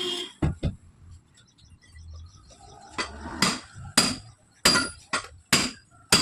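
Hammer blows on metal while a tyre is worked off its steel wheel rim: two quick strikes about half a second in, then, after a pause, a steady run of strikes about every half second, each leaving a short metallic ring.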